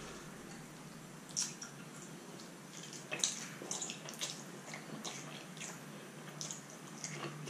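A person slurping and chewing instant noodles: soft, wet mouth clicks and slurps at uneven intervals, loudest about three seconds in.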